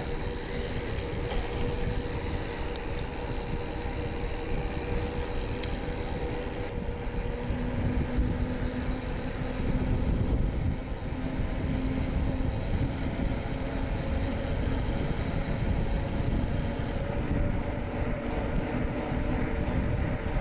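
Riding noise from a mountain bike on the move: wind buffeting the microphone over the rolling noise of wide tyres. A steady hum joins in about a third of the way in.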